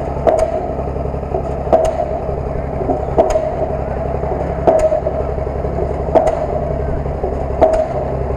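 A vehicle engine running steadily, with a sharp click repeating about every one and a half seconds.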